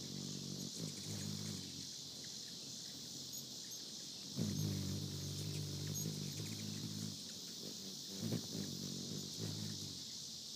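Hummingbird's wings humming in stretches as it hovers, briefly about a second in, then from about four seconds in for a few seconds, and again around eight to nine seconds. Under it, steady high chirring of insects.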